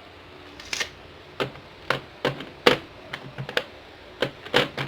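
Metal socket-set tools being handled: a dozen or so irregular sharp clicks and knocks as the pieces are picked up and set down against each other and the hard case.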